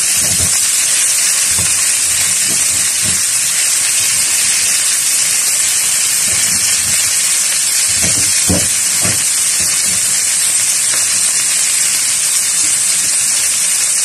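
Shredded cabbage, carrots and onion sizzling in hot oil in a frying pan: a steady, loud frying hiss. A few soft knocks come about eight to nine seconds in.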